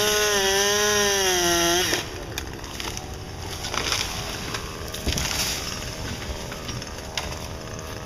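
Chainsaw running at high revs, its pitch dipping and rising as it works, then cutting off abruptly about two seconds in. After that, quieter outdoor background with a few short knocks.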